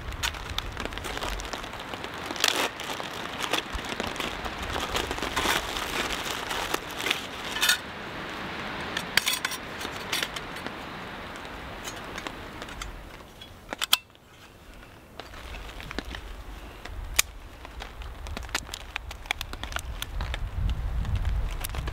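Camp cooking gear and packaging being handled: light clicks, clinks and crinkling over a crackly hiss, easing off after a sharp click about two-thirds of the way through. Low wind rumble on the microphone builds near the end.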